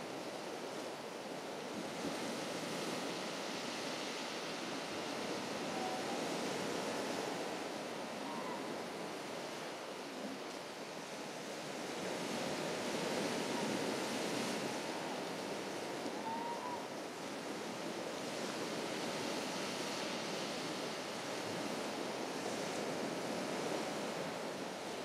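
Sea waves breaking and washing on a beach in a steady rush that swells and eases every several seconds.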